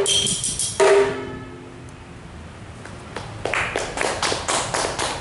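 The close of a ca trù piece: two loud struck notes with ringing tones in the first second, then a pause. From about three seconds in, a run of irregular sharp taps or claps follows.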